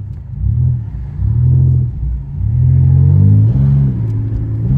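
Pontiac Grand Prix GT's 3.8-litre V6 running through a catless exhaust: a loud, deep rumble whose pitch swells up and falls back four or five times.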